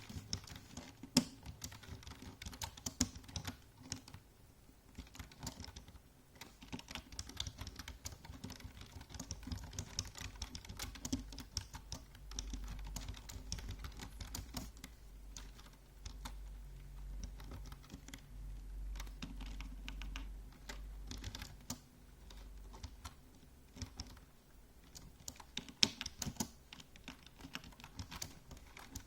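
Computer keyboard typing: rapid, irregular key clicks with brief pauses between bursts. A faint low rumble sits underneath through the middle stretch.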